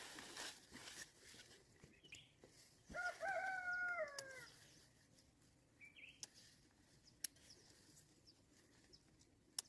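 A rooster crowing once: a call of about a second and a half that drops in pitch at the end. A few sharp clicks are heard later.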